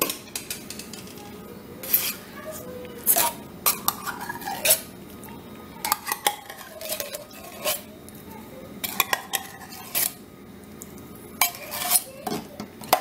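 Metal spoon clinking and scraping against a tin can and a stainless steel skillet as condensed cream of mushroom soup is emptied out and spread over rice and broccoli: a dozen or so irregular sharp clinks.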